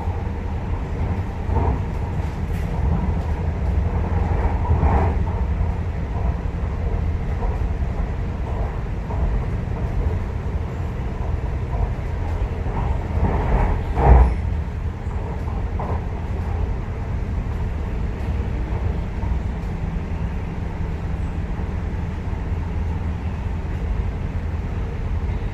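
Chinese-built MTR Tuen Ma Line electric train heard from inside the passenger car while running at speed: a steady low rumble with occasional knocks from the wheels and car body, and one louder thump about two-thirds of the way through.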